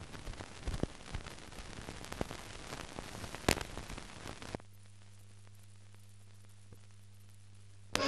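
Old newsreel film soundtrack with no programme sound: hiss with scattered crackles and pops, one sharper pop about three and a half seconds in. A little past halfway the crackle cuts off and only a faint steady low hum is left.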